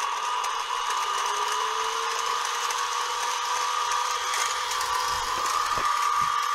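CNC mini mill's spindle running with a steady gear whine, its pitch creeping up in the first couple of seconds as it comes up to speed. A few light knocks near the end.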